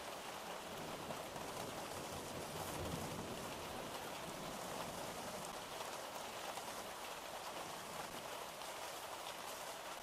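Steady rain falling, an even hiss of drops on a surface, with a faint low rumble swelling about three seconds in.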